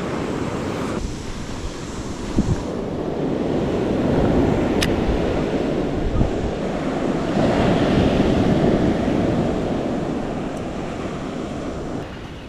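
Surf washing up the beach, swelling louder twice in long surges and easing off near the end, with wind on the microphone.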